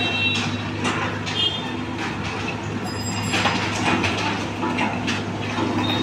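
Diesel engine of a tandem-drum road roller running steadily with a low, even hum, its drum vibration not yet switched on. A few brief high-pitched tones sound over it.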